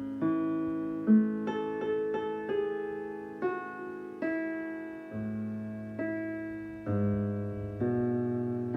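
Digital piano improvisation at a slow tempo: notes and chords struck roughly once a second, each left to ring and fade.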